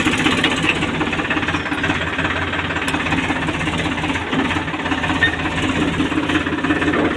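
Tractor's diesel engine running steadily at low speed with an even, rapid knocking clatter.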